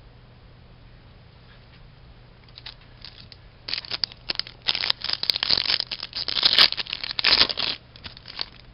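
A foil-wrapped pack of Upper Deck MVP hockey cards being torn open, the wrapper crinkling and crackling in a dense run from just under four seconds in to nearly eight, after a quiet start.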